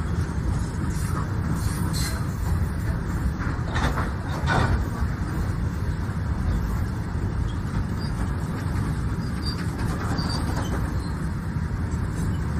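Passenger train rolling past a station platform: a steady low rumble from the moving coaches, with a few knocks about two and four seconds in.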